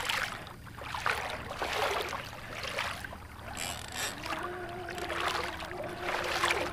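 Water slapping against a kayak hull and wind on the microphone while an Avet conventional reel is cranked under the load of a big shark. A steady hum sets in about four seconds in.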